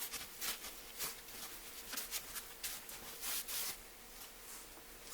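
Faint, irregular rustling and rubbing of a towel over a washed sweet potato as it is dried by hand, in short strokes that thin out near the end.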